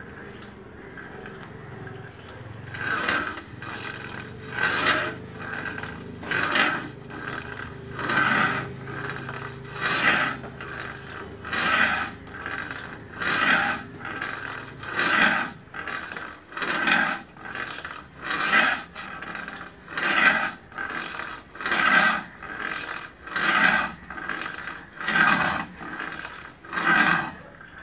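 Kukri blade being sharpened by hand, with long even strokes of metal against an abrasive, one about every 1.7 seconds, starting about three seconds in.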